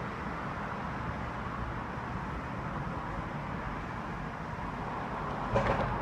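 Tubular motor of a remote-controlled roller insect screen running steadily, a low hum under a soft rushing noise, with a couple of knocks near the end.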